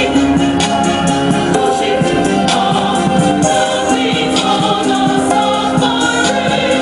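Music with singing played loud through a car's custom door speakers, Eminence Alpha 6a midranges and MB Quart tweeters, crossed over at 100 Hz, heard from outside the car at a distance.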